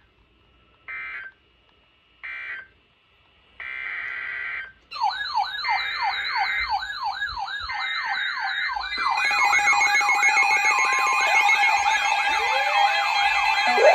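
Three short buzzy data bursts of Emergency Alert System (SAME) tones. They are followed by electronic siren sounds: a fast yelp sweeping up and down about three times a second under a higher warbling tone. From about nine seconds in, more layered tones and a steady drone join, building the alarm up.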